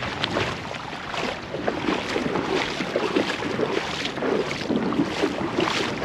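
Footsteps on wet tidal sand and a small dinghy being dragged over it, a run of irregular scuffs and steps.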